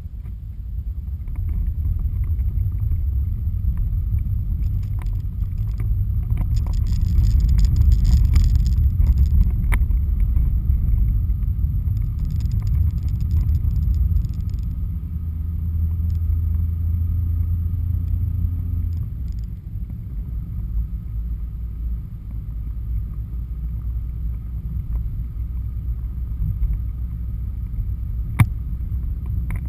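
Car cabin road noise while driving: a steady low rumble of engine and tyres that swells and eases with speed. A single sharp click near the end.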